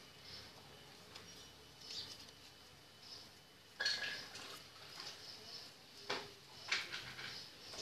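Paper handling: folded paper petals rustling and crinkling as they are pressed onto a paper-wrapped stick, with a few sharp clicks, the loudest about four seconds in and two more just after six seconds in.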